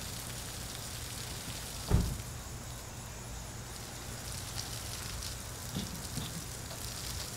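Irrigreen digital sprinkler head spraying fine streams of water steadily onto the lawn. A single thump about two seconds in.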